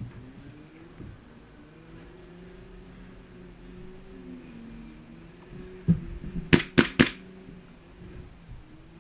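Three sharp airsoft gun shots in quick succession, about a fifth of a second apart, preceded by a single knock, over a steady low wavering hum.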